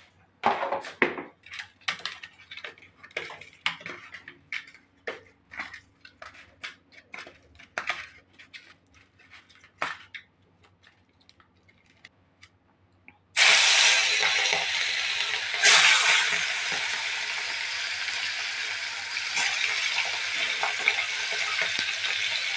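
Quick, irregular taps and clinks of spice-rubbed rohu fish pieces being handled in a steel tray. A little past halfway a sudden loud sizzle breaks in as the fish goes into hot oil in a kadai, and the oil keeps hissing steadily as the pieces fry.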